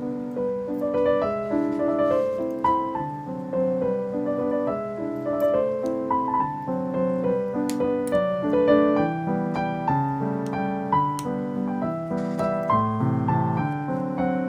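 Background piano music: a gentle melody of held notes and chords.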